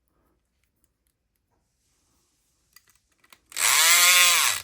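Electric lock pick gun (SouthOrd E500XT, 4.5-volt) whirring for about a second on a trigger pull, its pitch rising then falling as the motor spins up and winds down, after a few faint clicks. It is raking a cheap padlock open quickly.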